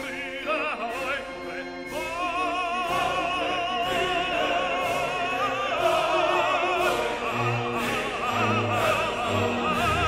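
Background music: opera-style singing with a wide vibrato over an orchestral accompaniment.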